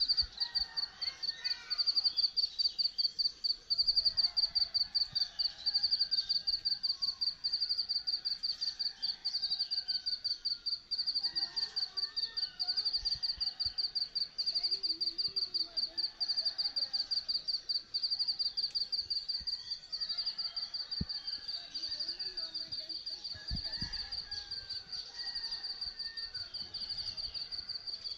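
An insect, such as a cricket, chirping in a steady, unbroken pulsed high-pitched trill that grows a little fainter toward the end, with faint bird calls underneath.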